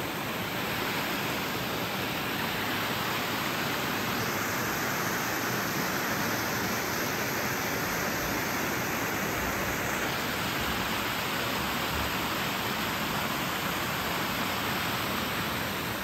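Small waterfall cascading through a narrow rock channel in a forest creek: a steady, even rush of water, its hiss a little brighter for a few seconds in the middle.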